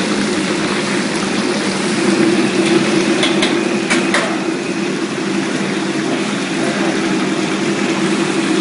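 Soft shell crabs deep-frying in hot oil in a wok: a dense, steady sizzle over a steady low hum. A few sharp metallic clinks about three to four seconds in, the spatula knocking against the wok.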